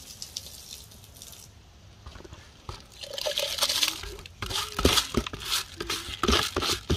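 Washed rice being tipped from a plastic bowl into a pot of boiling pumpkin water. From about three seconds in there is a wet pouring and splashing, followed by a run of sharp splashes and knocks as the rice goes in.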